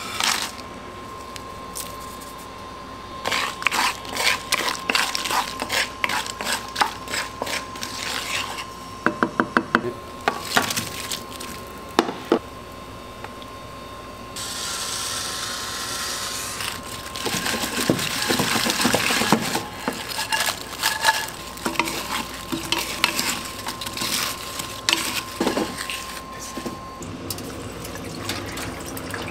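Stir-frying in a nonstick wok: a utensil clatters and scrapes against the pan as chilies, sauce and battered fried pork are tossed together, with a stretch of sizzling midway. A steady high whine runs under most of it and stops near the end.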